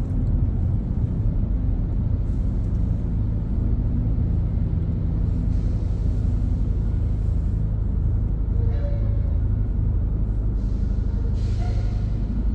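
Steady low rumble of a car driving, heard from inside the cabin. A few faint, brief higher sounds from passing traffic come about nine seconds in and near the end.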